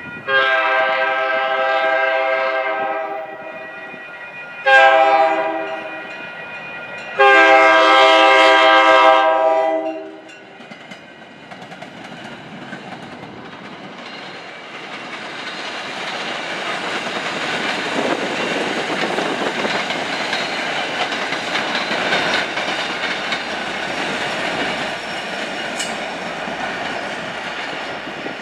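Horn of an F40PH-2C diesel commuter locomotive sounding three blasts, long, short, long, as it approaches a grade crossing. About ten seconds in the horn stops, and the train's wheels on the rails grow louder as it rolls past, with clickety-clack over the joints.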